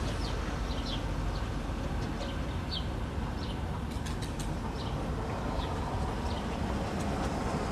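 Birds chirping in short, high, falling chirps, repeated irregularly every half second or so, over a steady low rumble.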